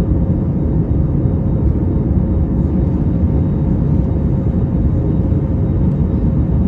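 Steady low rumble of an Airbus A321neo climbing after takeoff, heard inside the passenger cabin: its Pratt & Whitney geared-turbofan engines at climb power plus airflow, with a faint steady hum above the rumble.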